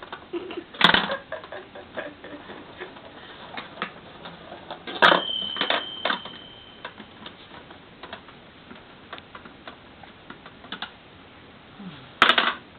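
Plastic balls clicking and rattling as they roll down the spiral ramps of a Kururu Chime ball-drop toy, with a louder knock about five seconds in followed by a short, high bell ring from the chime. A burst of clattering comes near the end.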